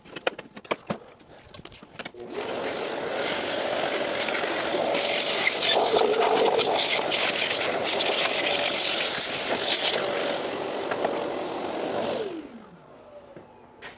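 Shop vacuum sucking dust out of a planer's plastic deflector shield: a few clicks of handling, then the vacuum switched on about two seconds in, running with a steady rushing hiss, and switched off near the end, its motor whine falling as it winds down.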